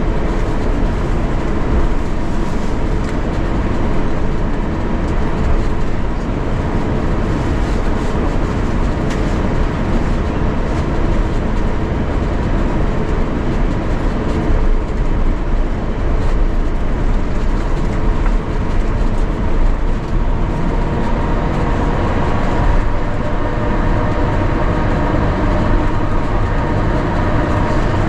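Cabin noise inside an Airbus A350-900 on the ground before takeoff: a steady, loud rumble with two constant hums and occasional light rattles.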